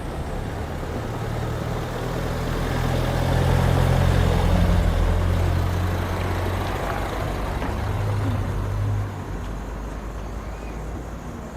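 A heavy road vehicle's engine running close by: a low steady hum that swells to its loudest about four to five seconds in, then fades and drops away about nine seconds in, over street noise.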